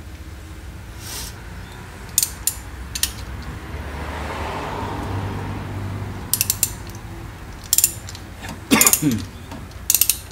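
Socket ratchet wrench clicking in short, irregular runs, with metal tool clinks, as a new spark plug is snugged down in the cylinder head; a brief squeak comes near the end.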